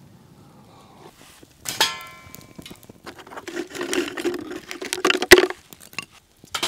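Chunks of stove fuel being handled and dropped into a container: rustling and clattering, with a ringing clink a little under two seconds in and a sharp crack about five seconds in.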